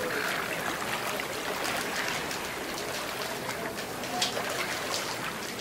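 Steady hiss of rushing water, like surf on a beach, with a few short clicks about four seconds in.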